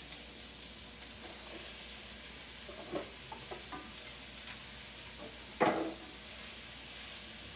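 Sliced mushrooms going into a hot enameled cast-iron skillet of sautéing onions and garlic, sizzling quietly and steadily as they are stirred in, with a few light knocks, the loudest about five and a half seconds in.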